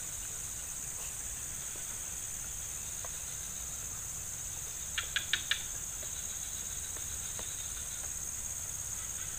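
A steady, high-pitched insect chorus, with four quick chirps about five seconds in.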